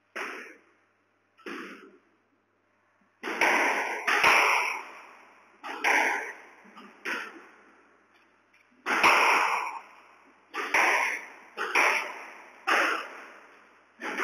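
Squash ball being struck in a rally: sharp pings of racket hits and the ball striking the walls, each ringing and echoing off the bare walls of the court. There are about a dozen hits, two early on and then coming more quickly from about three seconds in.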